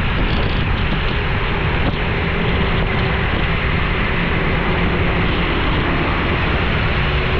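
Steady road and engine noise of a car being driven on a rain-wet road, a continuous rush of tyre noise with a low, even hum underneath.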